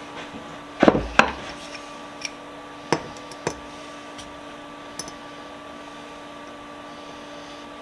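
Metal vise parts being handled: a few sharp clanks and knocks, the loudest two close together about a second in, more around three seconds and a lighter tick near five seconds, over a steady background hum.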